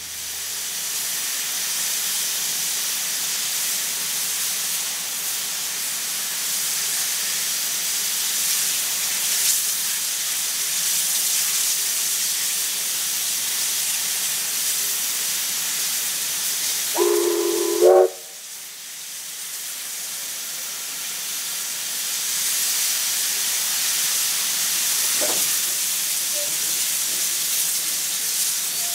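Oil-fired Victorian Railways J class 2-8-0 steam locomotive hissing steadily as it vents steam at its front end. About two-thirds of the way through, its whistle sounds once, about a second long. Right after the whistle the hiss drops away, then builds up again.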